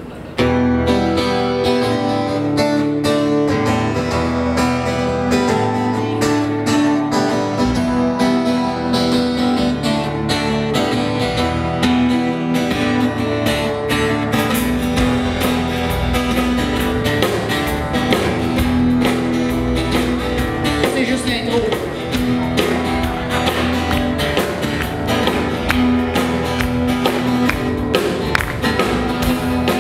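Live band playing a song: strummed acoustic guitar with drums and a second guitar, kicking in abruptly about half a second in.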